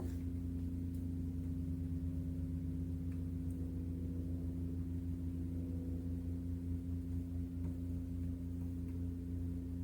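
A steady low hum made of several constant pitched tones, with a few faint ticks.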